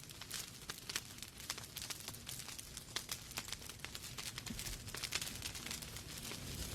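Wood fire in a fireplace crackling: many sharp irregular pops and snaps over a soft steady hiss of burning logs.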